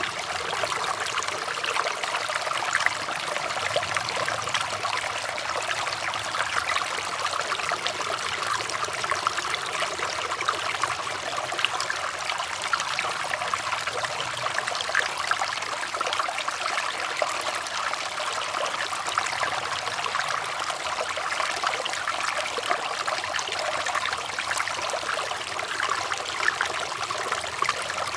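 Flowing water trickling and splashing steadily, a continuous bubbling wash with many small splashes and no change in pace.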